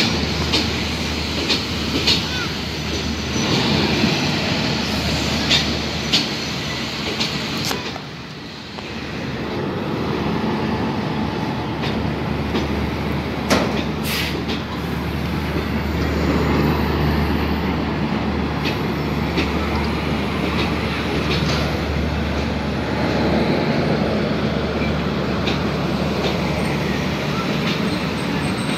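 Hitachi diesel-electric locomotive and its train in a station: a steady low engine drone under the rumble of the coaches, with scattered clicks and knocks from the wheels and couplings.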